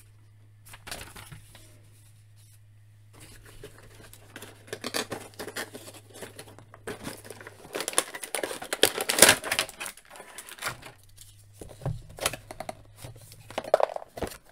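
Hands opening a cardboard toy box and pulling out its clear plastic tray: irregular rustling, scraping and crinkling, busiest around the middle.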